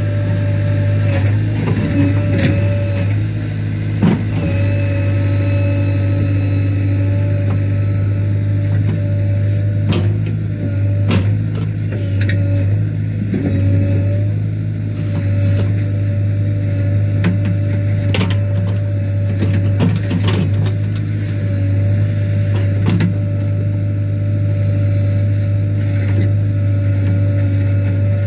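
JCB 3DX Eco Xpert backhoe loader's 49 hp diesel engine running steadily under working load, with a steady whine above it. Scattered short knocks and scrapes come as the backhoe bucket digs and moves soil.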